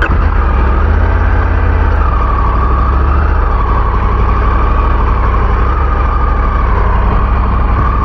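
Motorcycle engine running steadily at low speed, a deep continuous rumble. A thin steady higher whine joins about two seconds in.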